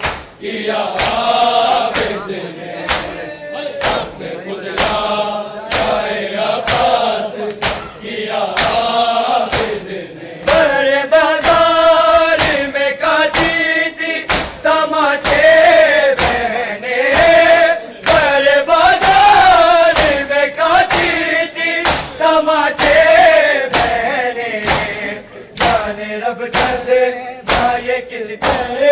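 Group of men chanting a Shia noha (mourning lament) in unison, with a steady rhythm of open hands striking bare chests in matam. The chanting grows louder about a third of the way in.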